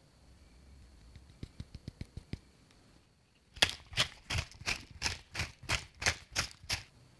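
Pepper mill being twisted to grind black pepper, about ten grinding strokes at roughly three a second, starting about halfway in. A few faint clicks come before it.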